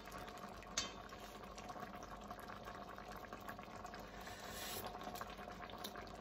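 Tomato and white bean stew simmering in an enamelled Dutch oven, a steady soft bubbling. About a second in there is a single light clink as the tasting spoon touches the pot.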